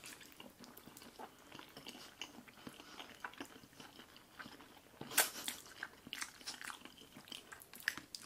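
Two people eating spaghetti in sauce close to the microphone: soft wet chewing and noodles being sucked in, with a louder burst of mouth noise about five seconds in.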